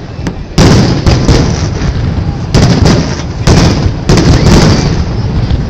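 Fireworks display: aerial shells bursting in loud booms, the first about half a second in, then three more in quick succession between about two and a half and four seconds in, each trailing off.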